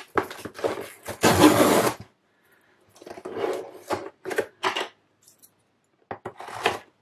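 Cardboard mailer box being handled on a table: turned over, set down and rubbed by hands, in several short scraping and rubbing bursts, the loudest about one and a half seconds in.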